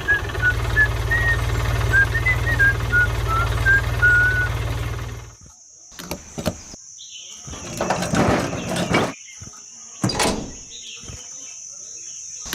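A small engine running with a low, steady throb, with birds chirping over it; the engine cuts off suddenly about five seconds in. A few short clattering noises follow.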